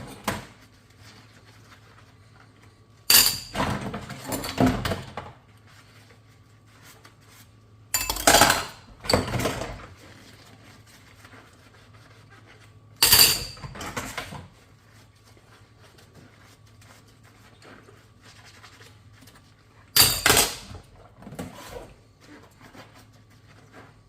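Dishes and cutlery clattering and clinking together while being washed by hand, in four short bouts a few seconds apart, with quieter pauses between.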